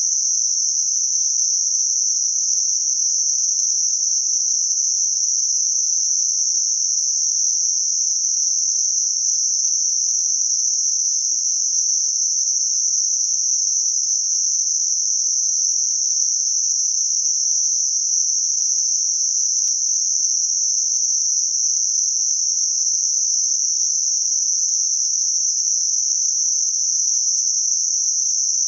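Synthetic Gaussian narrow-band noise centred on 6 kHz: a steady, even, high-pitched hiss with nothing low in it, used as a masking sound for high-frequency tinnitus.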